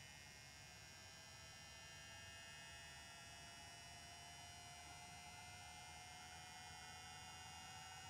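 Faint steady hum of the small cooling fan in an Opus BT-C3100 battery charger running with four cells loaded, with a thin tone that slowly rises in pitch.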